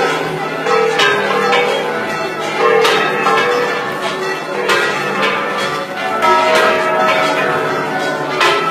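Church bells ringing, many irregular strikes whose long ringing tones overlap one another.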